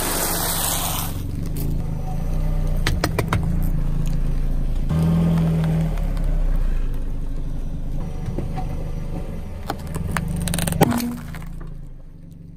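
Car engine running low and steady as the tyre rolls slowly over crunchy items on asphalt, with a few sharp cracks as they break under the wheel, twice around three seconds in and again near the end.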